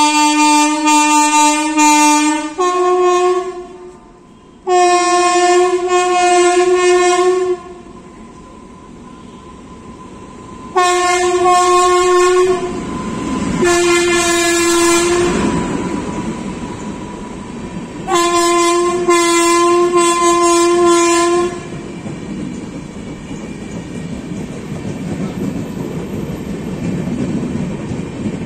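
WAP-7 electric locomotive's air horn sounding five long blasts as the express approaches and runs through the halt. The rumble and clickety-clack of the passing train's wheels rise from about halfway through and continue after the horn stops.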